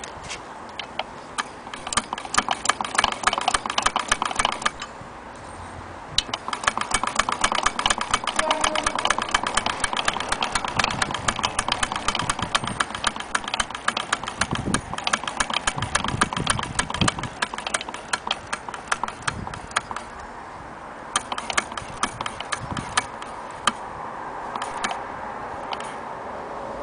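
Antique Willcox & Gibbs chain-stitch sewing machine running by hand wheel: a fast, even clatter of clicks from its mechanism. It comes in three runs, starting about two seconds in, with brief pauses around five and twenty seconds in.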